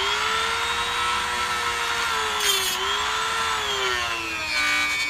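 Angle grinder running under load, cutting the seized inner metal collar of a worn control arm bushing. Its motor whine sags in pitch as the disc bites, with a short hiss about two and a half seconds in and again near the end, where the pitch drops lower.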